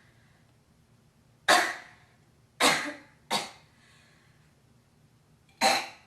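A girl coughing: four sharp coughs, the second and third close together, the last after a pause of about two seconds.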